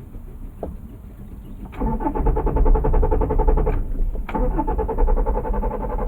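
A car's starter motor cranks the engine with an even, rapid pulsing, but the engine does not catch. The cranking stops briefly about two seconds in and then starts again.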